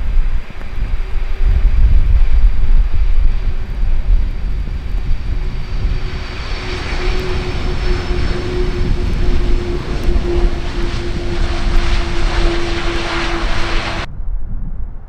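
KLM Boeing 747-400's four jet engines running as the airliner rolls along a wet runway: a steady hum with a jet roar and hiss that builds over the second half, over heavy wind rumble on the microphone. The sound cuts off abruptly about a second before the end.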